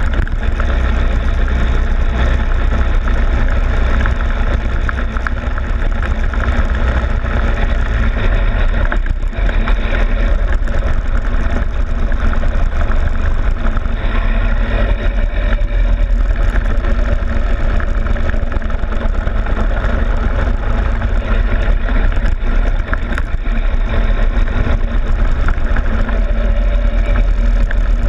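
Go-kart engine running steadily at speed around the track, heard from a camera on the kart's front fairing, with a strong low rumble of wind and road noise underneath.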